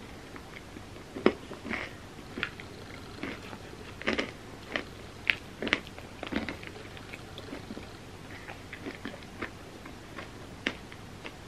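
Close-miked eating of an ice cream sundae: chewing, wet mouth smacks and sharp clicks in scattered bursts, busiest in the first half.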